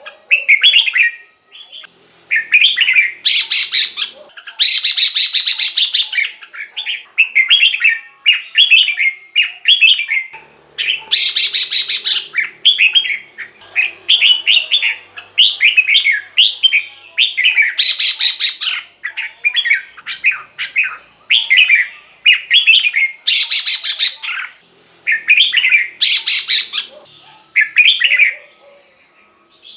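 Red-whiskered bulbul singing short, bubbly whistled phrases over and over, about one a second, with louder, harsher rasping bursts every few seconds.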